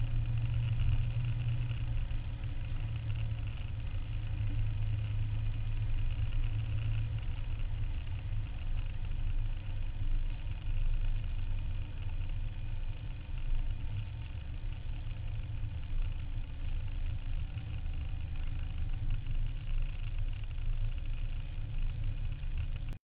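Engine of a Jaguar XJ13 replica running steadily at a low, parade pace, heard from on board the car with road and wind noise. The sound cuts off abruptly near the end.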